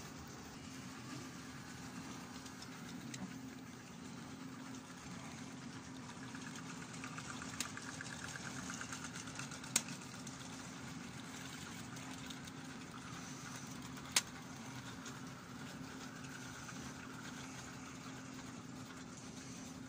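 OO-gauge model freight train running on the layout's track: a steady motor hum and wheel rumble that grows louder as the wagons pass close, with three sharp clicks.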